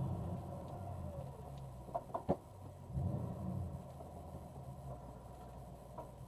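Mustang engine idling low and fading, with a cluster of sharp clicks and clunks about two seconds in and another near the end, from the faulty MT82 manual gearbox's shifter being forced toward gear. The gearbox is hard to get into gear, which the owner puts down to a bent or loose input shaft.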